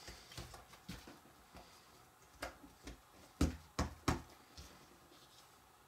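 Jigsaw puzzle pieces being handled and set down, a scattered series of light knocks and clicks, loudest about three and a half to four seconds in.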